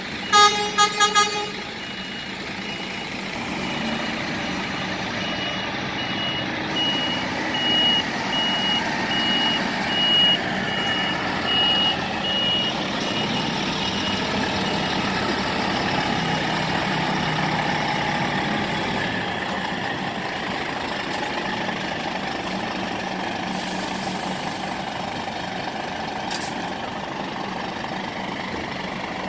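Scania P360 tractor unit reversing with its DC11 diesel running, its reversing alarm beeping about twice a second and fading out about halfway through. A rapid burst of loud horn toots sounds about a second in.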